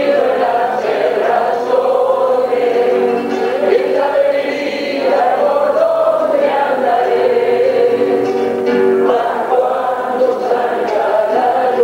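Three classical guitars playing Argentine folk music together, with a voice singing over them.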